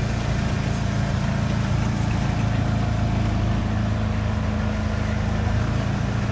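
Motorboat engine running steadily, a low, even drone.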